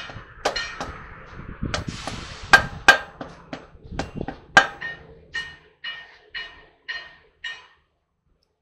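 Metal hammer strikes on a heavy truck's steel wheel hub, about two a second, each ringing briefly. They grow lighter and stop shortly before the end. A short hiss comes about two seconds in.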